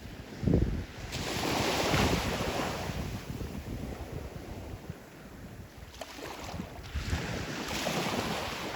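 Surf breaking and washing up the beach, the hiss swelling about a second in, fading away, then swelling again near the end, with wind rumbling on the microphone.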